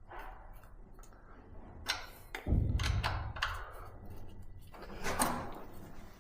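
Clicks and knocks with one loud low thud about two and a half seconds in, as the Fiido L3 e-bike's rear disc brake, freshly fitted with new pads, is worked to test it.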